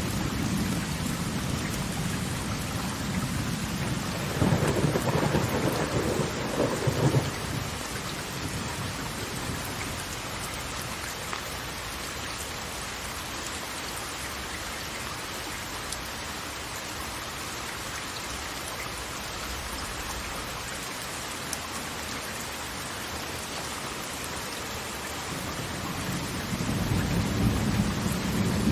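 Steady rush of falling water with deep rolling rumbles: one at the start, a louder one about four to seven seconds in, and another building near the end.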